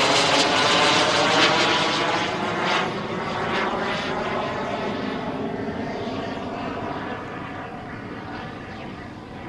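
Jetcat P-220RXi model jet turbine of a large-scale Fiat G91 model in flight, loud over the first few seconds and then fading steadily as the jet flies away.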